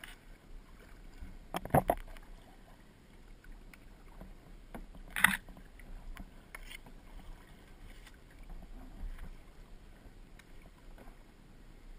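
Kayak paddling sounds on water: a quick pair of sharp knocks about two seconds in and a single louder one a little after five seconds, over faint water noise.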